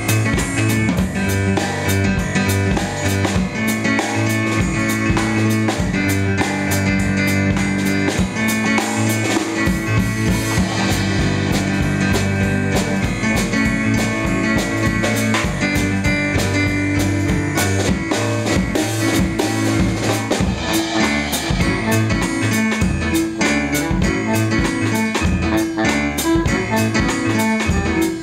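Live band playing an instrumental passage: drum kit keeping a steady beat under keyboard and saxophone.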